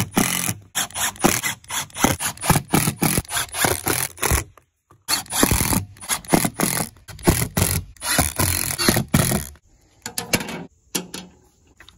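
Milwaukee Fuel cordless impact driver hammering drywall screws down through a plywood sheet into the deck below, in long bursts of rapid rattling strikes. There is a short pause about halfway through, and the driving stops shortly before the end, leaving a few clicks.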